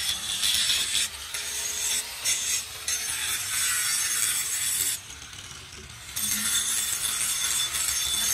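Electric angle grinder with an abrasive disc grinding rusty truck chassis steel: a harsh scraping hiss over the motor's whine. It eases off a few times, and drops away for about a second around five seconds in before biting again.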